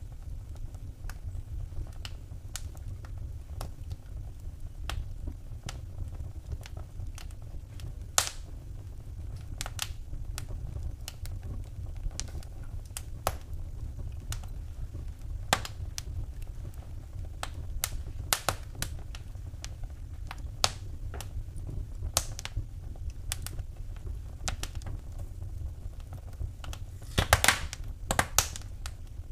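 Wood fire in a fireplace crackling: irregular sharp pops and snaps over a low steady rumble, with a quick cluster of louder pops near the end.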